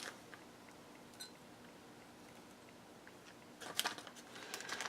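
Faint room tone with a couple of small clicks, then a short flurry of clicks and crinkly rustling near the end as small ingredient containers and packaging are handled while panthenol powder is measured out.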